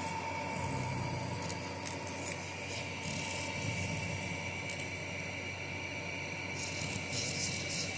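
A puppy's nails being filed: scratchy rubbing and rasping strokes come and go over a steady hum.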